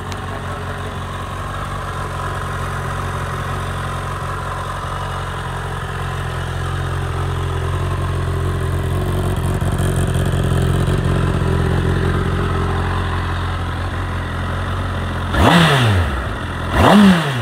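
Honda CBR1000RR sportbike's inline-four engine idling steadily in neutral, then revved twice with quick throttle blips near the end, each climbing and dropping straight back to idle.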